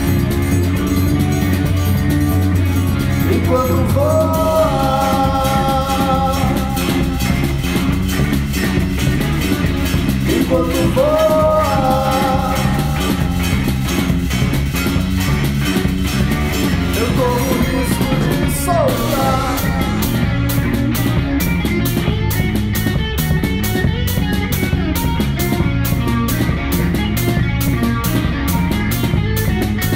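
A band playing a groove-based rock tune: electric bass and guitar over percussion, with a melodic line that slides up into a short held phrase three times. About two-thirds of the way through, a fast, even, high percussive pulse joins in.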